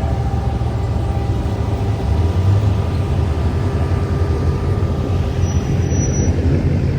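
Car engine running steadily with a low, even drone, with no sharp revs or bangs. This is typical of a V8 muscle car cruising.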